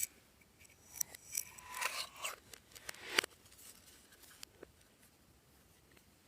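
Clear slime being mixed, giving a quick run of crackling clicks in the first half and a few faint ticks after.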